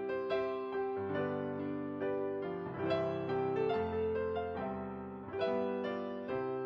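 Soft piano music, chords and melody notes struck and left to ring.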